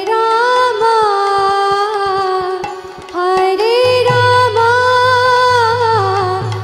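Background music: a voice singing a slow Indian-style melody in long held, gliding notes, two phrases with a short break about three seconds in. A low drone and light drum taps accompany it.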